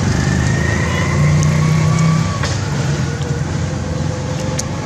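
Motor vehicle engine running, a steady low rumble with a faint thin whine over it for the first couple of seconds.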